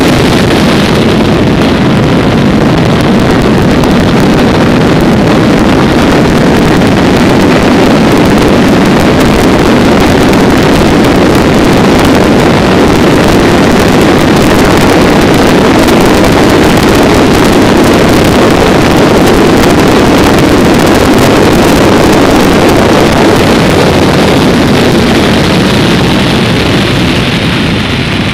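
Loud, steady wind rush over the microphone mixed with the road and engine noise of a vehicle travelling at speed, easing slightly near the end.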